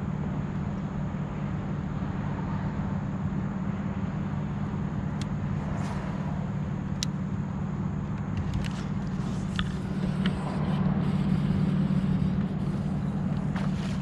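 Steady low hum, as of a small motor, with a few light clicks. Near the end, splashing begins as a hooked bass thrashes at the surface.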